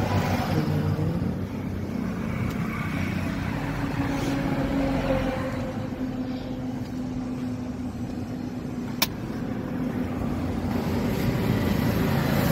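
A motor vehicle's engine running, its pitch drifting slowly up and down, with one sharp click about nine seconds in.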